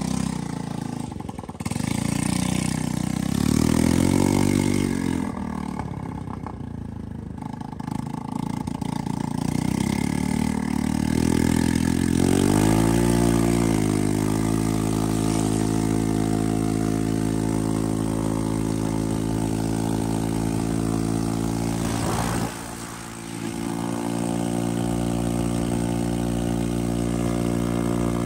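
Small gasoline moped scooter engine pulling away, with its pitch rising and falling a couple of times as the throttle is worked. It then settles into a steady, even note at cruising speed, with a brief dip as the throttle eases off about two-thirds of the way through.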